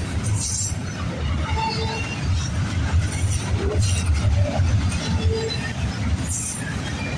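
Double-stack intermodal freight train of container-laden well cars rolling past close by: a steady low rumble of steel wheels on rail, broken by a few sharp clanks and brief faint squeals.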